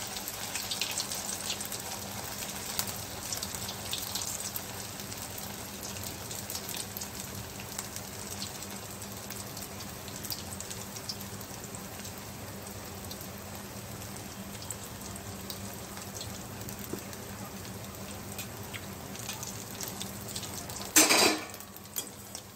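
Sabudana-potato vadas deep-frying in hot oil in an iron kadhai over a medium flame: a steady sizzle with scattered little crackles. Near the end comes one brief, loud clatter.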